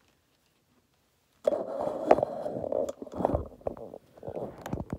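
Cloth rustling and being handled, with scattered small knocks and clicks, starting about a second and a half in after a moment of near silence.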